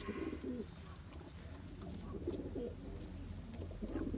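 Domestic pigeons cooing in a loft, a low wavering coo repeating.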